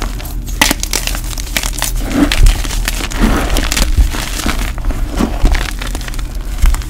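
Blocks of gym chalk crushed and crumbled by hand into a pile of powdered chalk: a dense run of crisp crunching and crackling with many small snaps and a few louder crunches.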